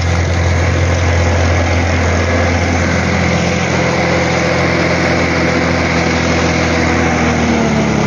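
Valtra A750 tractor's diesel engine running steadily under load while pulling a seed planter, a continuous low drone.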